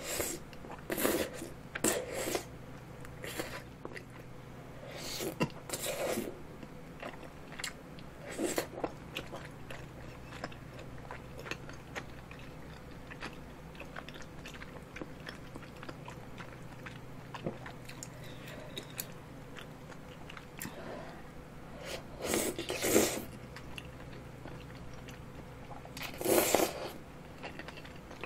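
Close-miked slurping and chewing of long, saucy tteokbokki rice cakes and fish-cake strips. Several wet slurps come in the first nine seconds, then softer chewing, then two louder slurps near the end.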